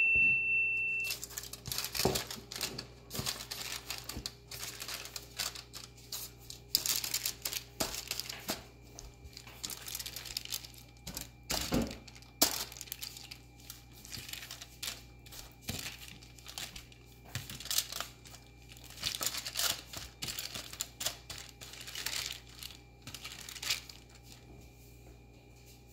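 Olive oil being smeared over marinated chicken pieces on a baking tray: irregular rustling and crinkling with light clicks. An electronic beep dies away about a second in.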